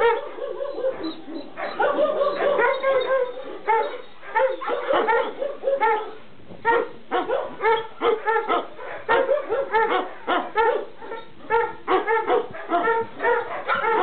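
Several kennelled dogs barking at once, many short barks overlapping in quick succession.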